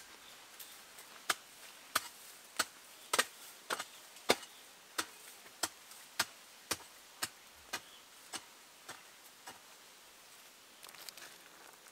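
A blade chopping at a steady pace, about fifteen sharp strikes, a little under two a second. The strikes are loudest a few seconds in and grow weaker before stopping about nine and a half seconds in.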